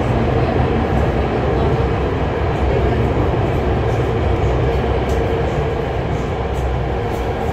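Hohhot Metro Line 1 train running at speed through a tunnel, heard inside the carriage: a loud, steady rumble of wheels and running gear with a steady hum over it.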